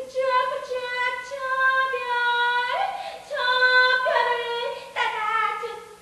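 A woman singing in a high voice without accompaniment: long held notes of a second or two, in about four phrases that step up and down in pitch.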